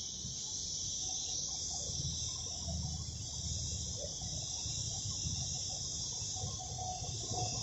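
Compressed-air spray gun hissing steadily as it sprays paint onto a car bumper, over a low rumble.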